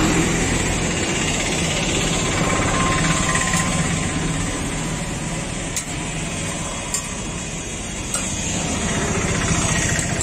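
A steady, loud engine-like rumble with a fast flutter, and a few sharp clicks of a metal spatula against an iron griddle.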